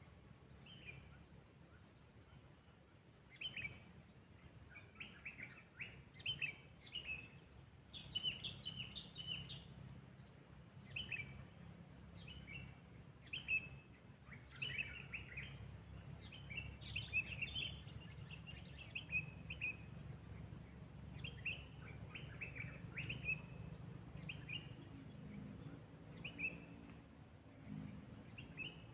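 Sooty-headed bulbul (kutilang) calling faintly in short, bright chirping phrases, one every second or so, over a low steady hum.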